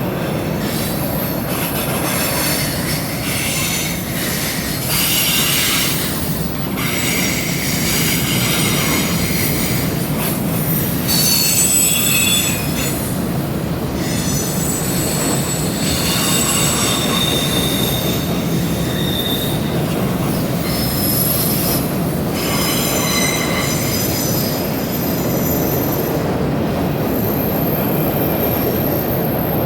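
Train rolling across a rail bridge: a steady rumble of the cars, with high-pitched wheel squeal coming and going over it.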